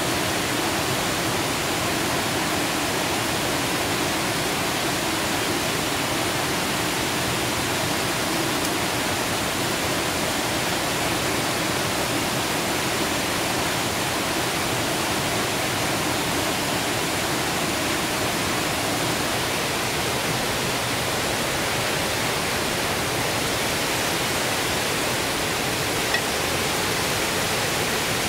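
Small forest stream rushing over rocks, a steady even rush of water with one brief click about two seconds before the end.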